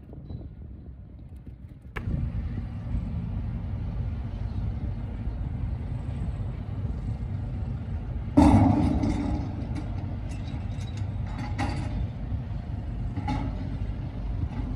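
Motor vehicle traffic with a steady low rumble that starts abruptly about two seconds in. About eight seconds in there is a sudden loud bang, followed by a few sharp clicks.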